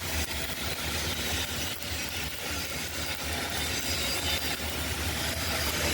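Welding arc crackling steadily as a vertical-uphill (3G) weld bead is run on a steel plate, with a low steady hum underneath.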